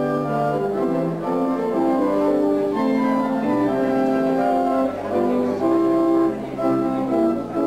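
Church pipe organ playing held chords, several notes sounding together and moving from chord to chord.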